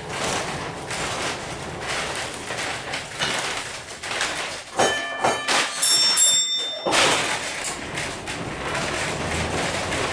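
Vintage 1906 wooden streetcar running along its rails, heard from inside the passenger cabin. A brief high-pitched squeal comes about five seconds in, lasts about two seconds, and stops suddenly.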